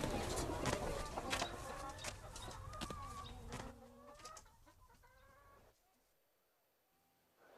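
Chickens clucking in a farmyard, with short sharp clicks among the calls; the sound fades away and is gone about five seconds in, leaving near silence.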